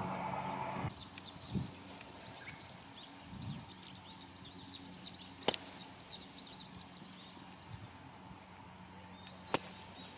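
Two bunker shots: a golf club strikes through the sand under the ball twice, each a sharp, brief hit, about four seconds apart. Birds chirp steadily throughout.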